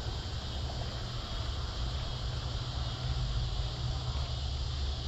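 Steady chorus of crickets and other insects over a low, uneven rumble on the microphone.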